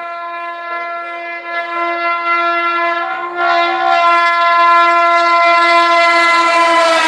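Indian Railways train horn sounding one long, steady blast that grows louder about halfway through as the train approaches, its pitch sagging slightly at the end as the train passes.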